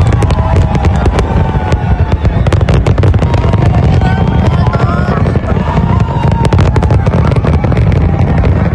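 Large fireworks display: a dense, continuous barrage of bangs and crackles, several a second, over a deep low rumble.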